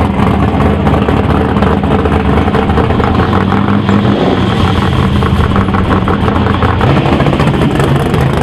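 Classic muscle car's engine running at low revs as the car rolls past, its pitch shifting a couple of times.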